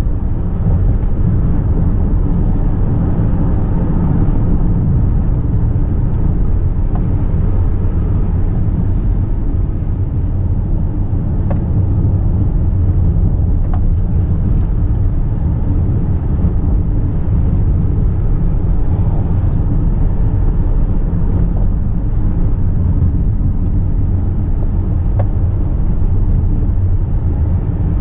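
Car driving along a road, heard from inside the cabin: a steady low rumble of engine and tyre noise with a faint hum.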